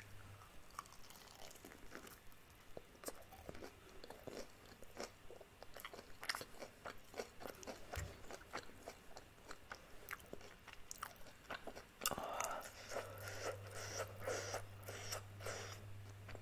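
Biting and chewing crispy fried chicken, the crunchy breaded coating cracking in many short sharp crackles.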